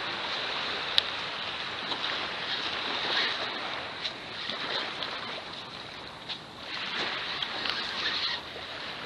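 Gentle surf washing on a sand beach, with wind on the microphone, as a steady hiss; one sharp click about a second in.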